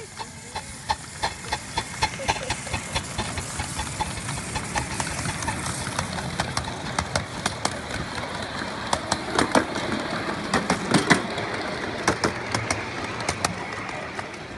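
Ride-on miniature steam locomotive, a Pacific, pulling a train of riding cars along the track. It runs with a rhythm of sharp clicks, about three a second at first, which grow louder and less regular around the middle.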